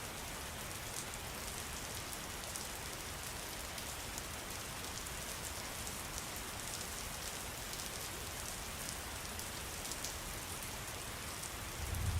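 Steady rain falling, a continuous hiss with fine patter of drops; a low rumble swells briefly near the end.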